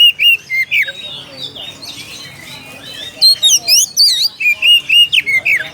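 Oriental magpie-robin (kacer) singing its challenge song, a rapid run of sharp chirps and sweeping whistled notes calling out to a rival. It sparsens for about two seconds in the middle, then resumes in quick bursts.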